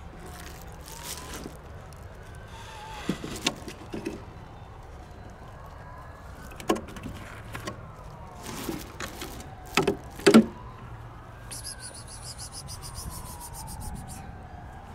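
Clear plastic bag of dry cat food rustling and crackling, with kibble rattling, as a kitten pushes into it and hands work the bag; the sharpest crackles come twice about two-thirds of the way in. Under it a faint siren wails slowly up and down.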